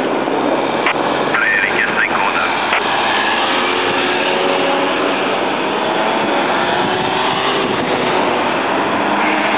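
A convoy of cars and vans driving past in a steady stream, a continuous wash of engine and tyre noise, with rising engine notes in the second half as more vehicles approach.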